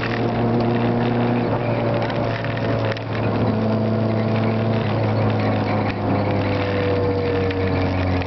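Citroën AX GTi rally car's 1.4-litre four-cylinder engine heard from inside the cabin, running hard at stage speed with its pitch stepping and sliding several times. Road and tyre noise run underneath.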